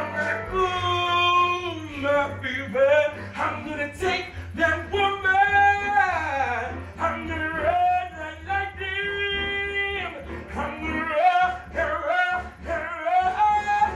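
Male voices singing a chain-gang song live on a theatre stage, with backing music.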